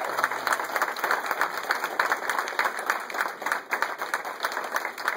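A small audience applauding, many people clapping steadily.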